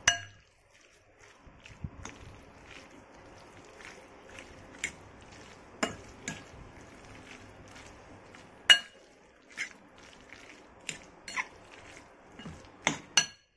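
A metal fork stirring thin slices of soy-marinated beef and flour in a bowl: a wet squelching and sloshing of the meat, broken by sharp clinks of the fork against the bowl every second or so. The loudest clink comes about nine seconds in, and two more come close together near the end.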